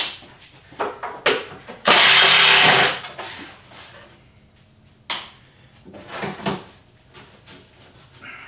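Tools and parts knocking and clicking during work on a car, with one loud, harsh burst of about a second, about two seconds in.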